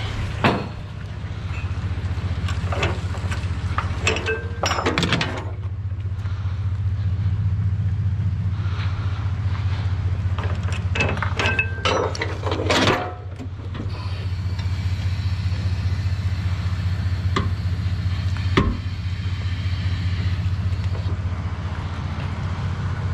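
Delivery truck's engine running steadily with a low drone, with several clunks and rattles over it.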